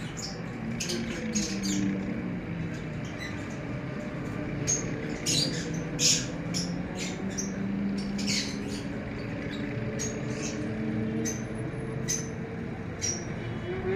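Hen and goose foraging over fish scraps on concrete: many short, sharp clicks and chirps come at irregular moments over a steady low drone that slowly drifts in pitch.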